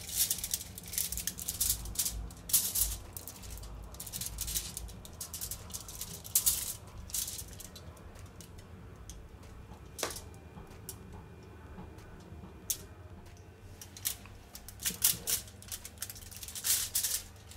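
Aluminium foil crinkling and rustling in irregular bursts as hands press stuffing into a whole fish lying on it, with quieter stretches between.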